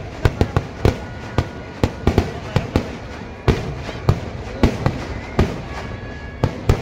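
Kerala temple-festival fireworks (vedikettu) going off: a rapid, irregular string of sharp bangs, several a second, with a brief lull about halfway through.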